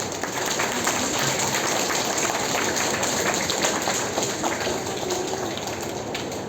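Audience applauding, a dense steady clatter of many hands clapping that eases slightly near the end.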